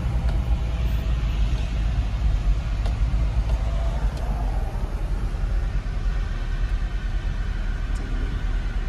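Steady low rumble of a Chevy Silverado pickup's engine and tyres heard from inside the cab while it rolls slowly.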